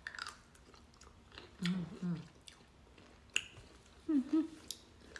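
Crisp dill pickle slices being bitten and chewed: a handful of sharp, separate crunches, the loudest a little over three seconds in. Two brief murmured voice sounds come in between.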